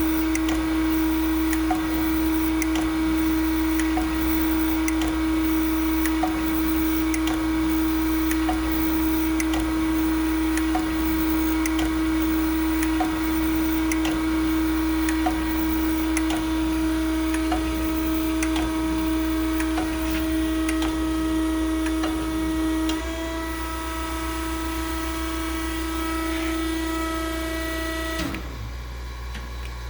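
Harig 618 automatic surface grinder running with a steady pitched hum and regular light ticks about once a second. The tone shifts slightly about 23 seconds in, and the main hum stops about 28 seconds in, leaving a quieter hum.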